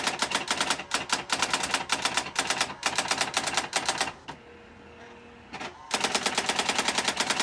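Brother SX-4000 electronic daisy-wheel typewriter printing its self-demo text at about ten rapid strikes a second. Past the middle it stops for about a second and a half, with only a faint motor hum, then resumes typing.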